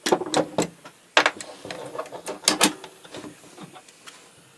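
Sharp clicks and clatters of small tools and wires being handled on a workbench during soldering, busiest in the first three seconds and fainter after.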